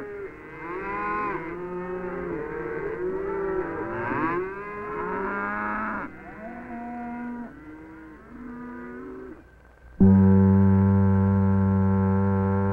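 A herd of beef cattle mooing and bawling, many calls overlapping, thinning to a few fainter calls after about six seconds. About ten seconds in, a loud held brass-like musical chord starts abruptly.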